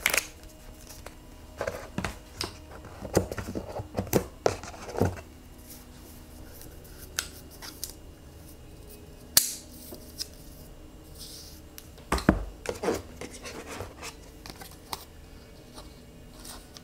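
Close-miked unboxing handling: the paper documentation envelope and the charger and cable are lifted out of the MacBook Pro's cardboard tray. It comes as a run of sharp clicks, taps and rustles, with a louder snap about nine seconds in and another around twelve seconds.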